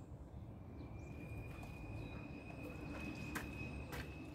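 Quiet garden ambience: a steady high-pitched tone, like an insect's whine, with a few faint bird chirps. Two sharp clicks about half a second apart come near the end.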